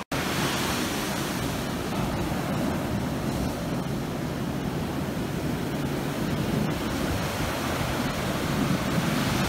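Rough ocean surf: waves breaking and washing up a sandy shore in a steady rush.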